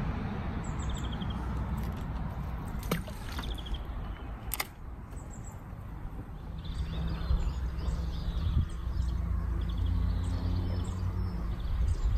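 Outdoor ambience: a steady low rumble with a faint low hum joining about halfway, small birds chirping on and off, and two sharp clicks a little before halfway.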